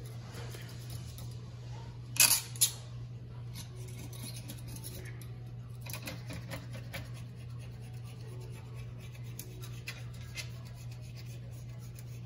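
Old caulk being scraped and picked from the rim of a stainless steel sink: short scratchy strokes, with two sharp clicks about two seconds in. A steady low hum runs underneath.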